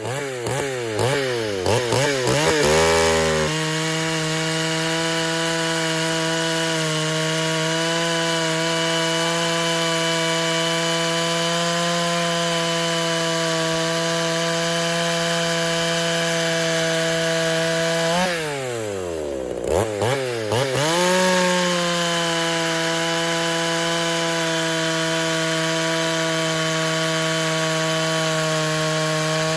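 Poulan Countervibe 3400 two-stroke chainsaw with a Stihl RS chain. It is blipped up and down for a few seconds, then held at a steady full throttle while the chain cuts through wood. About eighteen seconds in the revs drop off, climb back with a few blips, and it settles into a steady cut again.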